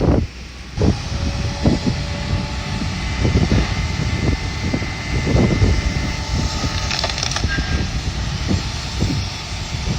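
Heavy demolition machinery engine running steadily, with a faint whine and wind buffeting the microphone.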